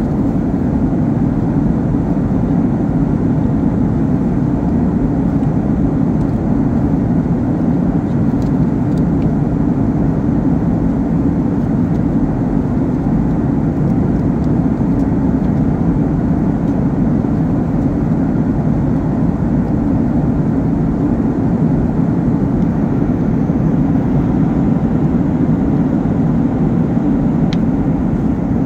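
Steady cabin noise of a Boeing 737 jetliner in cruise: engine and airflow noise heard from inside at a window seat. It is a constant low drone that does not change.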